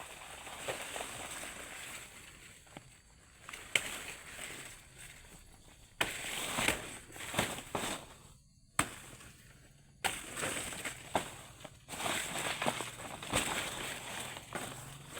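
Rustling and crunching of plant material during a banana harvest, with several sharp knocks. It comes in short segments that cut in and out abruptly.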